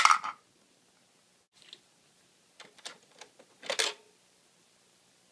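Plastic clicks and knocks from a toy vending machine being handled: a clatter at the start, a few light taps, and a louder click near the end as the front panel is pressed.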